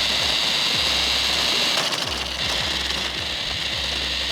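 Small electric motor of a remote-control toy car running steadily, a continuous whine with a low hum underneath.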